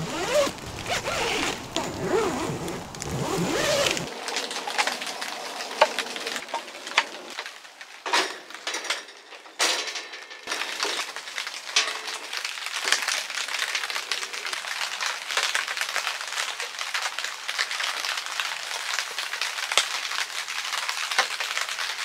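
Rain pattering steadily on tent fabric, with handling noises over it: a zipper during the first few seconds, then scattered clicks and knocks as table legs are fitted into a wooden tabletop.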